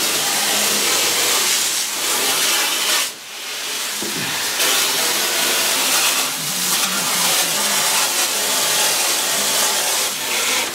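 Water from a pistol-grip hose nozzle spraying hard into an empty metal tank, a steady hiss with the jet splashing on the tank's floor and walls as it starts to fill. The spray breaks off briefly about three seconds in, then carries on.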